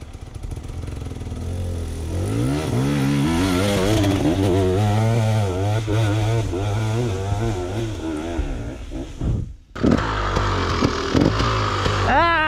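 Enduro dirt bike engine revving, its pitch rising and falling over and over. It breaks off abruptly about ten seconds in, then the engine sound resumes.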